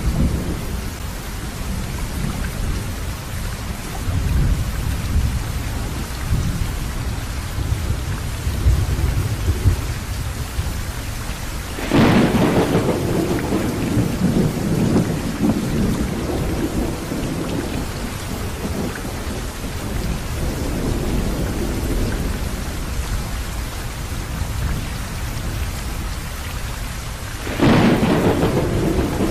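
Thunderstorm: steady rain with a low rumble, broken by two sudden loud claps of thunder, about twelve seconds in and again near the end, each fading over a few seconds.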